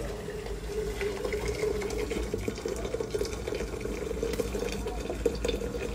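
Water poured in a steady stream from a stainless steel kettle into a small metal teapot, its tone rising slightly as the pot fills.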